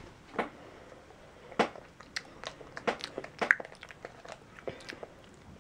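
A person chewing a small chewy candy close to the microphone: irregular mouth clicks and smacks, a dozen or so, coming thickest in the middle.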